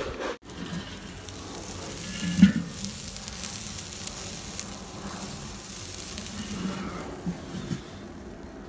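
Food sizzling on a charcoal grill, a steady hiss of fine crackle, with one sharp knock about two and a half seconds in.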